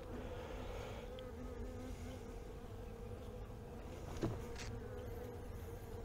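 Honeybees buzzing over an open hive, a steady hum from a colony that is a little more defensive than usual. A light knock about four seconds in.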